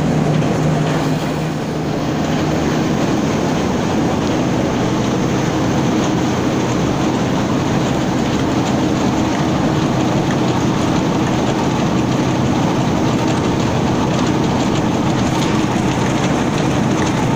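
Roller flour mill (atta chakki) machinery running at full production, a loud, steady mechanical din with a low hum underneath, unchanging throughout.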